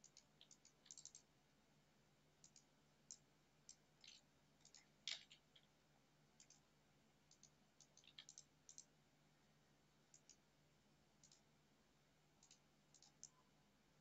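Faint computer mouse clicks, irregular and often in pairs or small clusters, with one louder click about five seconds in.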